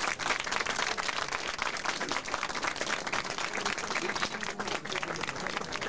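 A crowd applauding, many hands clapping steadily throughout.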